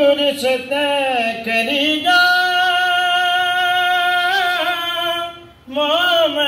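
A single voice singing a ginan, an Ismaili devotional hymn, without accompaniment. The line bends up and down, settles into one long held note from about two seconds in, breaks off briefly near the end, and then resumes.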